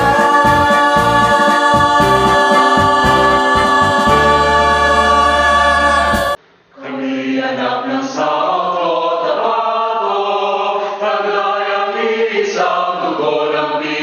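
A music track of sustained chords over a low, pulsing beat cuts off abruptly about six seconds in. After a brief gap, a group of voices sings together in a chant-like melody, sounding duller than the music before it.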